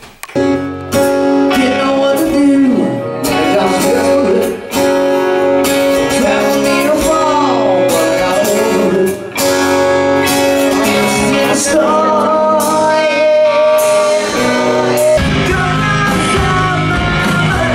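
Rock music with a singing voice and guitars, loud and continuous.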